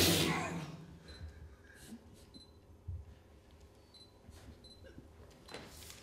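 A sudden loud burst at the start that dies away within a second, then a quiet theatre stage with only faint shuffles and a few soft knocks and clicks.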